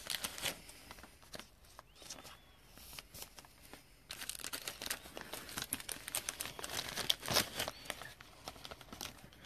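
Plastic and foil card packaging crinkling in scattered crackles as trading cards are handled, sparse at first and busier from about halfway through.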